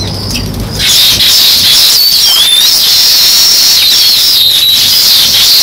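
House sparrows chirping, a dense chorus of many overlapping chirps that grows louder about a second in.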